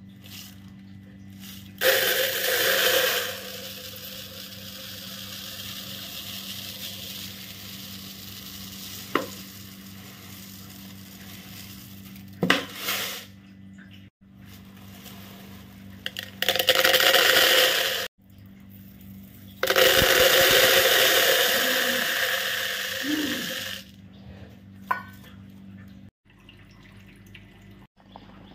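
Household work sounds in short cut-together clips: several bursts of hissing noise, each about one to four seconds long, and a few sharp clinks, over a steady low hum.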